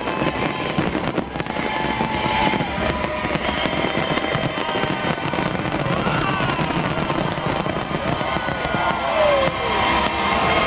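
Fireworks show going off continuously: dense crackling and popping bursts, with a few whistles gliding up and down.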